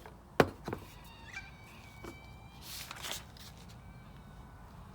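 A few sharp clicks and taps as small plastic carburettor parts and tools are handled on a work surface. The loudest click comes about half a second in, and there is a brief rustle near the middle.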